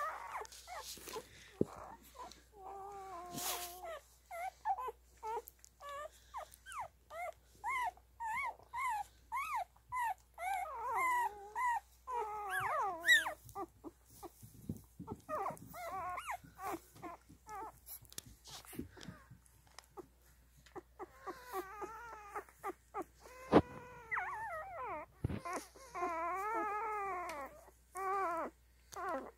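Newborn standard poodle puppies squeaking and whimpering: many short high calls at about two a second, then longer wavering cries in the second half. A sharp knock comes about two-thirds of the way through.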